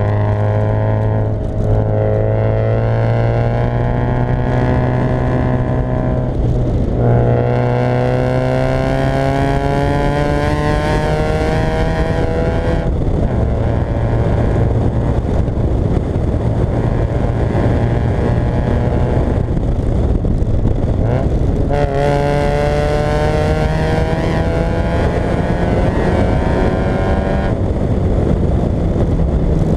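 Fiat Coupé 1.8 16v four-cylinder engine pulling under acceleration. The revs climb steadily in each gear and drop back at each of several gear changes.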